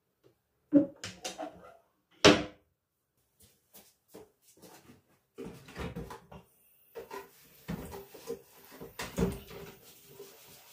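Household objects being handled: two sharp knocks about a second and two seconds in, then lighter clicks, taps and rustling.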